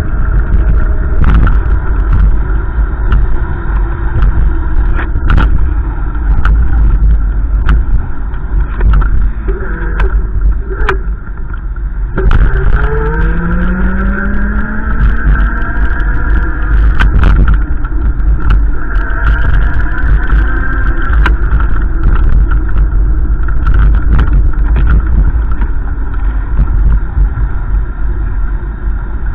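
A car driving, with a steady low engine and road rumble; about twelve seconds in, the engine note rises as it speeds up.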